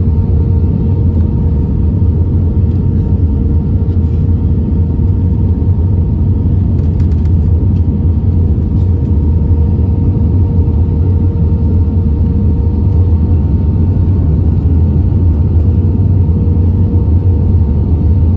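Cabin noise of an Airbus A320-232 on final approach, heard at a window seat over the wing: a loud, steady rumble of its IAE V2500 engines and the airflow over the extended flaps, with a steady hum running through it.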